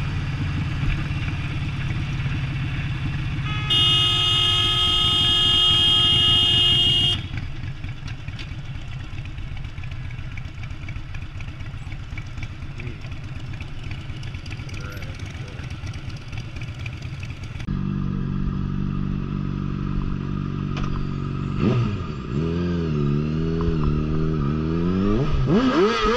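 Motorcycle engine running steadily while riding in traffic, with a long, steady car horn blast about four seconds in that lasts some three seconds and is the loudest sound. Later a motorcycle engine revs up and down several times.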